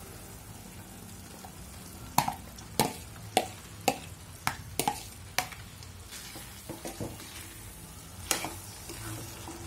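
Metal spatula knocking and scraping against a steel kadai in a run of sharp taps, as sliced mushrooms are tipped into a thick masala and stirred in. Under the taps the masala sizzles faintly, fried until its oil has started to separate.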